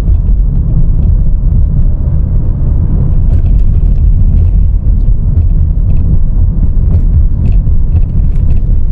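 Steady low rumble of car engine and tyre road noise, heard from inside the cabin while driving.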